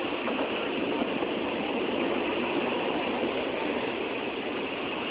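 Train running along the track: a steady noise of wheels on rails.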